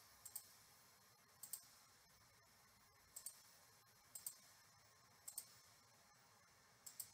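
Computer mouse button clicking six times, about a second apart, each click a quick double snap of press and release, faint in a quiet room.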